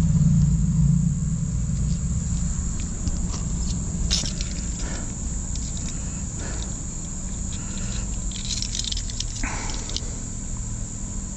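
Sewer drain jetter's engine running steadily with a low hum, under a steady high-pitched tone, with a few short knocks and taps from about four seconds in.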